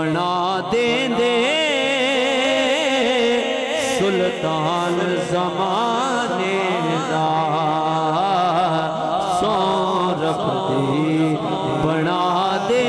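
A man singing a Punjabi naat, a devotional song in praise of the Prophet, through a microphone, holding long wavering ornamented notes without words over a steady low drone.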